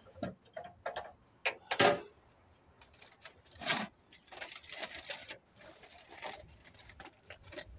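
Aluminium foil crinkling and rustling in short, irregular bursts as a foil cover is peeled back by hand, with a few sharper knocks.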